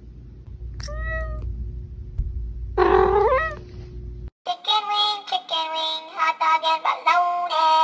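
A cat meows twice: a short meow about a second in, then a longer, louder one that rises and falls. After an abrupt cut a little past halfway, music with a sung melody takes over.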